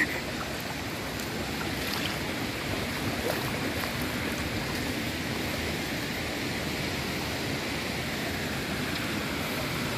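Shallow river running over rocks and stones: a steady rush of flowing water.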